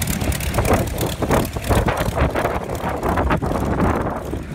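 Piston engine of a vintage propeller-driven fighter aircraft running at low taxiing power as it rolls past, with a rough, rapidly pulsing beat.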